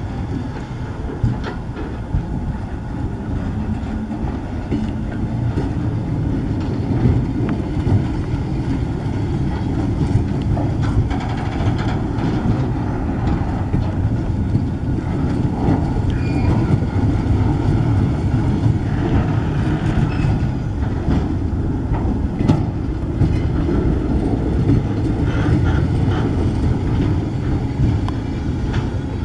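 Log-loaded bulkhead flatcars of a freight train rolling past: a steady low rumble of steel wheels on rail, with a few sharp clicks and knocks here and there.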